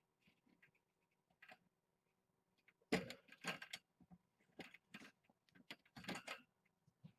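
Knocks, clicks and scrapes of handling close to the microphone as kittens scramble at it and a hand lifts one kitten. The loudest is a sharp knock about three seconds in, followed by scattered clusters of clatter.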